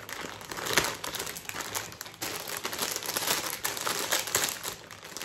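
Packaging being pulled open and handled, with irregular crinkling and rustling throughout.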